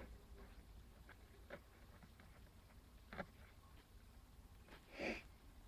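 Near silence: room tone with a couple of faint clicks and one short breathy sound about five seconds in.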